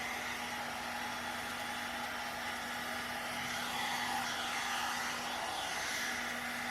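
One-step hair dryer and styler (a hot air brush) running steadily: a constant rush of blown air with a steady low motor hum beneath it.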